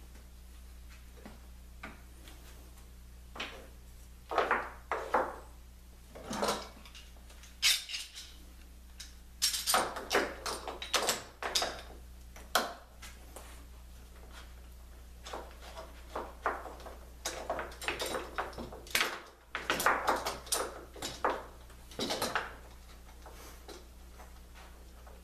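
Steel bar clamps clinking and clicking as they are slid, set and tightened around a laminated baltic birch plywood ring: an irregular scatter of sharp metal knocks and rattles in two flurries, with quiet pauses between.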